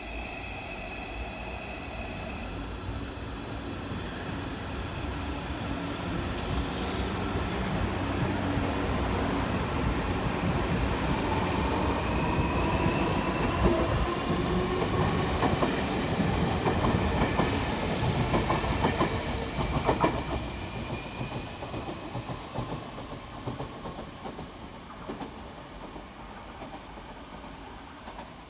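Tobu Spacia X electric limited express train moving through the station. Its motor whine glides up in pitch as the sound builds, and its wheels clack over rail joints in a run of sharp knocks. The sound then fades steadily as the train moves away.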